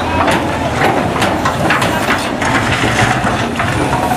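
Hydraulic excavator's diesel engine running steadily under load, with many short knocks and clatters of debris as it breaks up the market stalls.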